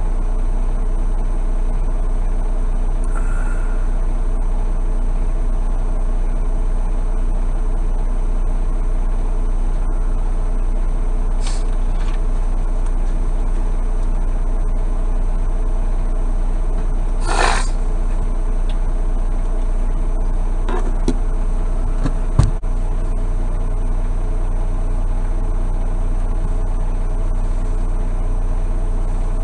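A semi truck's diesel engine idling steadily, heard from inside the cab. A brief noise comes about 17 seconds in, and a single sharp knock about 22 seconds in.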